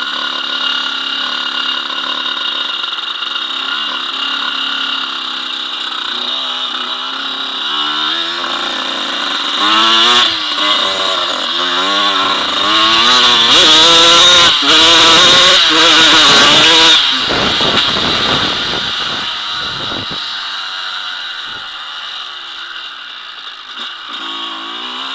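Dirt bike engine being ridden hard, its pitch rising and falling again and again as the throttle opens and the gears change. It is loudest in the middle, with the hardest acceleration there.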